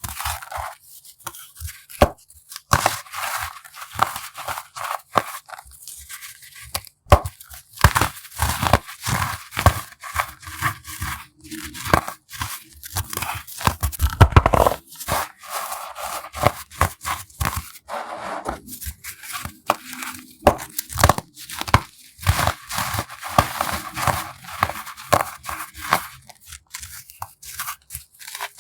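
Baking soda being crushed: a dense, irregular run of crisp crunches and crackles, with one heavier, deeper crunch about halfway through.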